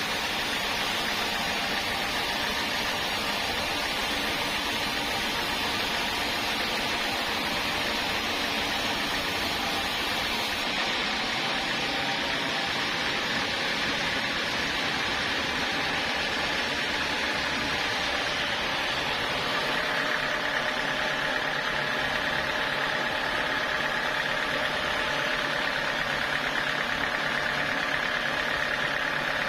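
Sawmill machinery running steadily, a mechanical drone with several steady tones. About two-thirds of the way through, a higher whine joins in.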